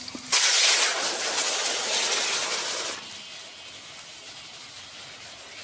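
Boiled moong dal poured into hot oil tempered with cumin seeds, bay leaf and dried red chillies in a kadai: a sudden loud sizzle that sets in about a third of a second in and drops after about three seconds to a fainter steady hiss.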